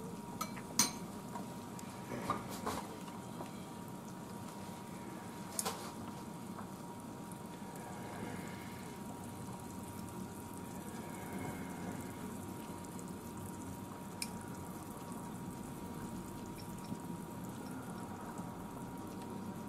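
Soup broth simmering in a stainless steel saucepan, a low steady bubbling, with a few light clicks as carrot pieces are dropped in with chopsticks.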